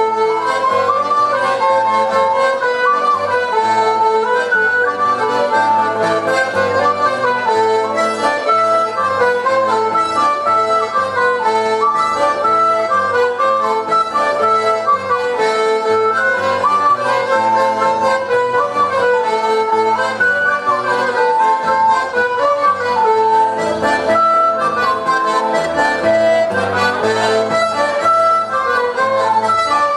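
Instrumental folk dance tune from a small band: fiddle, accordion, guitar and a small wind instrument play a lively repeating melody over a steady bass line, with no singing.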